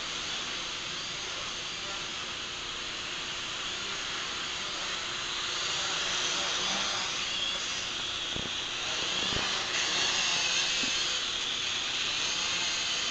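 Small toy quadcopter drone's propellers whirring steadily in flight, growing somewhat louder after the middle as it comes closer.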